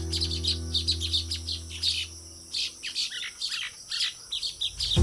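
Baya weavers chattering: many rapid, high chirps in quick succession, with a low held music chord fading out over the first two seconds.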